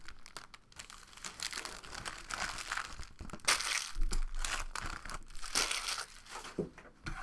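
Foil wrapper of a Panini Contenders football card pack being torn open and crinkled by hand, in irregular rustling bursts that are loudest a little past the middle.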